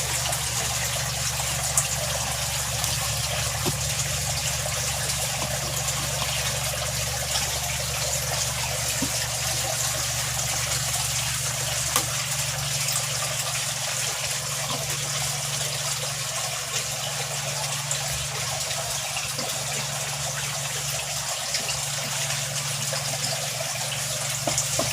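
Aquarium water bubbling and trickling from an air pump's aerator, steady throughout, over a steady low hum.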